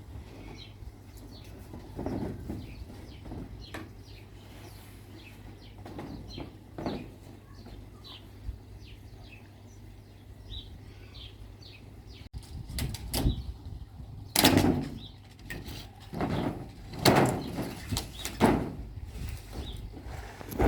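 Koi pond cover hoods being handled and lifted off: irregular knocks, thuds and scrapes, louder and more frequent in the second half, over a steady low hum.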